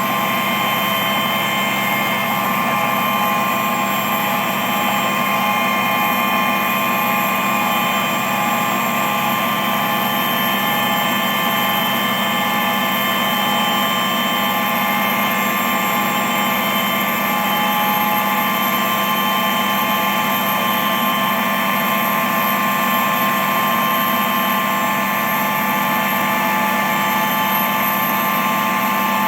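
Steady, unchanging engine drone made up of several constant tones over a noisy hum, with no starts, stops or changes in pitch.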